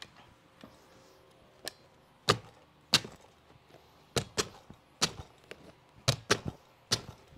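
Carpet knee kicker being struck again and again, about ten sharp thumps in an uneven rhythm, some in quick pairs, as its teeth stretch a carpet stair runner tight across the tread.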